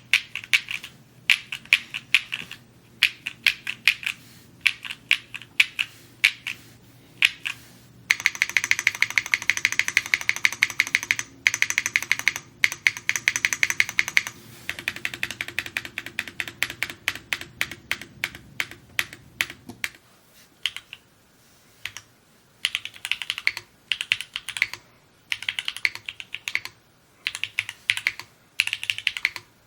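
Typing on a Mode Encore 2 mechanical keyboard: uneven runs of key clicks, with a fast, dense run of keystrokes from about a third of the way in to near the middle.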